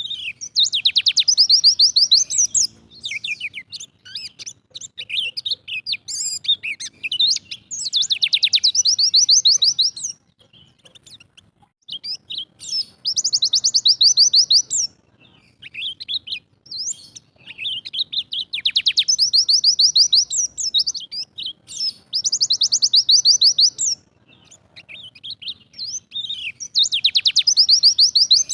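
Yellow-breasted Bali white-eye (pleci dakun Bali) singing in its 'tembakan' style: six loud, fast trilled bursts of about two to three seconds each, roughly every five seconds, with short high chirps in between.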